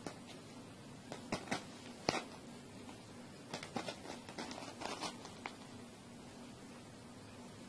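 Scattered light dry clicks and scrapes, some in quick clusters, from about a second in until about five and a half seconds in, as a paw drags crunchy cheese puffs across a woven straw mat.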